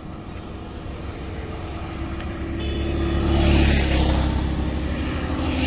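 Traffic on a highway: a motorcycle passes close by, its engine hum and tyre noise building to a peak a little over halfway through and then fading, with another vehicle approaching near the end.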